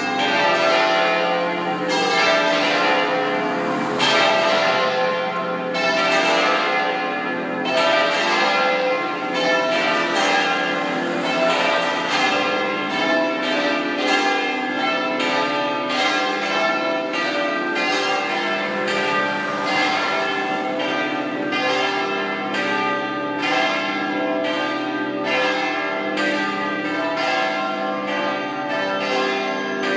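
Full peal of a seven-bell concert in C: the three largest bells swung together in the Treviso style and the four smaller ones swinging freely, all driven electrically. The strokes overlap into a dense, continuous ringing and come closer together in the second half.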